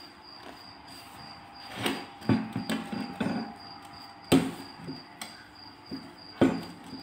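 Sheets of galash (phyllo) dough rustling and crackling as they are rolled up by hand on a round metal tray, with a string of sharp knocks against the tray from about two seconds in; the loudest come near the middle and near the end.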